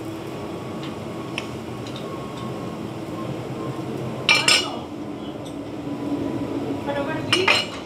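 Spoons and cutlery clinking against china plates and bowls, with two short loud clusters of clinks about four seconds in and near the end, over a steady low room hum.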